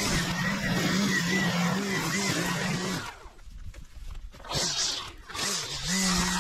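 String trimmer running steady at full throttle while edging, then let off to a low idle about halfway through, and revved back up to full speed near the end.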